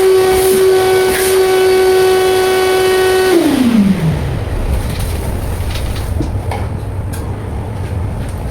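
Wet vacuum cleaner's motor running with a steady high whine, then switched off about three seconds in, its pitch falling fast as it spins down. A low rumble with a few light clicks follows.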